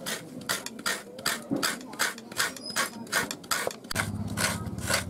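Coconut half being scraped against the serrated grater of a boti, a rhythmic rasping of about two and a half strokes a second as grated coconut falls onto a steel plate.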